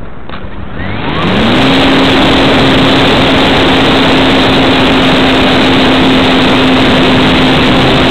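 Electric motor of a Parkzone Radian powered glider spinning up about a second in. Its whine rises briefly and then holds one steady pitch under loud propeller and air rush on the onboard camera's microphone, the motor under power for a climb.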